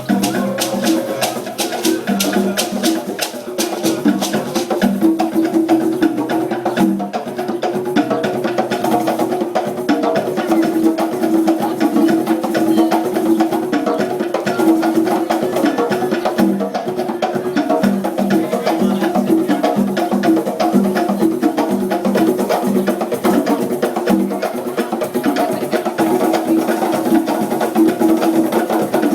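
Live African drum ensemble playing a steady, fast percussion rhythm, the drums sounding short pitched notes, with a shaker rattling in the first few seconds.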